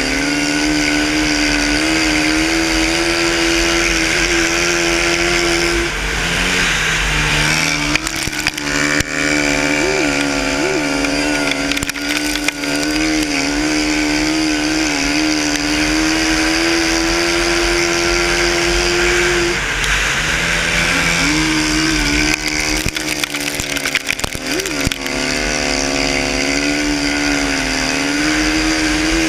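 Yamaha racing quad's engine running at high revs on board. The pitch dips briefly and climbs back twice, as the throttle eases through the turns.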